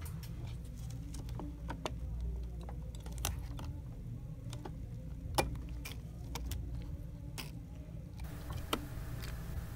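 Scattered small clicks and ticks of plastic and metal as an HP printhead's electronic board is unscrewed and prised off by hand, the sharpest click about five and a half seconds in, over a steady low hum.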